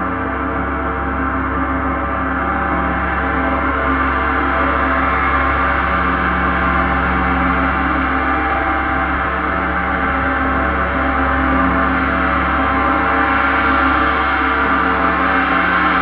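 Paiste 34-inch Symphonic gong played with a soft round mallet in continuous light strokes, building a dense, sustained wash of many overlapping tones with no separate strikes standing out. It swells slowly louder.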